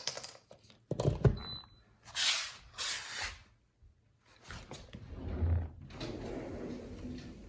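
Clicks, knocks and rustling from handling a small Vornado fan and its power cord while it is being plugged in, with a sharp click about a second in and a steadier shuffling rumble in the second half.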